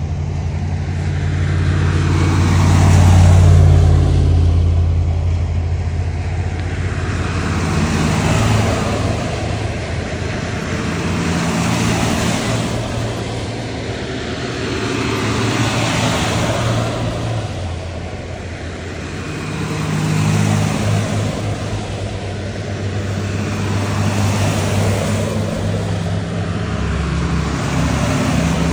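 A line of buses driving past one after another, engine and tyre noise swelling and fading as each one passes, about every four seconds.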